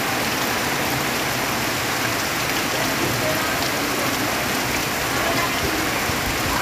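Heavy rain pouring steadily onto palm trees and leafy vegetation: a dense, even hiss that holds without letting up.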